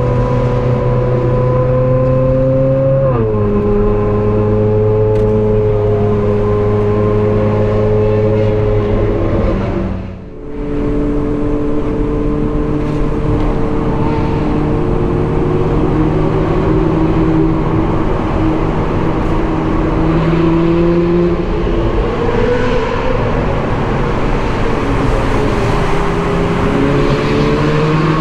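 Ferrari 458 Spider's V8 engine and exhaust pulling at steady highway revs. About three seconds in the pitch steps down, as at an upshift, and around ten seconds in the sound dips briefly before the engine picks up again, its pitch rising a little near the end.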